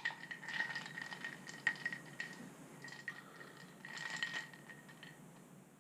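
Light rattling and clinking: a quick run of small clicks over a faint, steady high ringing tone, fading out near the end.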